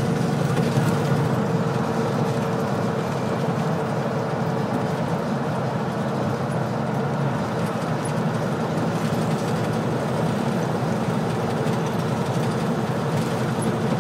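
Semi truck's diesel engine and tyre noise heard from inside the cab, running steadily at highway speed through a tunnel. A faint steady hum fades out about five seconds in.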